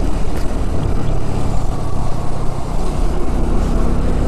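Motorcycle being ridden at road speed: engine running steadily under a heavy low wind rumble on the helmet-mounted camera's microphone.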